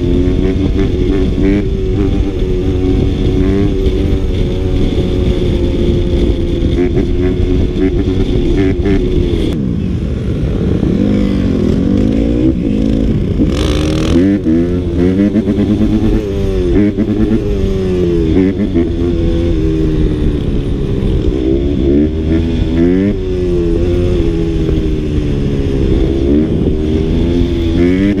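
A small dirt bike's engine running under way, with wind rumbling on the bike-mounted microphone. Its pitch holds fairly steady for the first several seconds, then rises and falls over and over through the middle as the throttle is worked, before settling again near the end.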